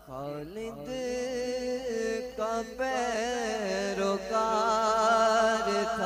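A male voice reciting a naat, an Urdu devotional poem, unaccompanied into a microphone, drawing out long wavering notes with ornamented runs between them after a short breath at the start.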